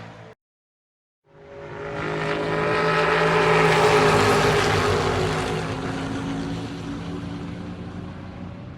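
A NASCAR stock car's V8 engine running at speed, swelling up to a peak about three seconds in and then slowly fading, as the car goes by. Just before it, the end of the previous engine sound cuts off, followed by about a second of silence.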